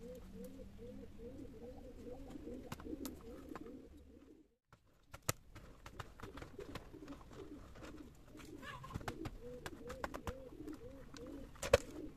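A dove cooing over and over in an even rhythm, about two coos a second, with light clicks and knocks from hands handling a plastic pot and tools. The sound cuts out briefly just under halfway, and a sharp click comes near the end.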